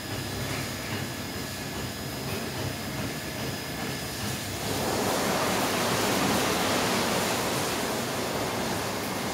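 Automatic rollover car wash machine running, with a steady rushing hiss that swells and gets louder about halfway through.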